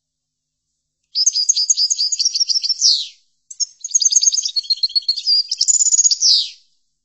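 European goldfinch song: two fast twittering phrases of short, rapid notes, the second starting about half a second after the first ends, each closing with a quick falling note.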